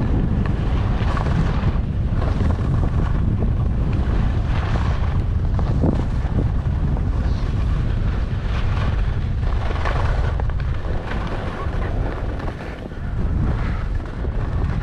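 Wind buffeting the microphone of a skier moving downhill, a steady heavy rumble, with the hiss and scrape of skis carving on packed snow in repeated turns. The wind eases briefly near the end as the skier slows.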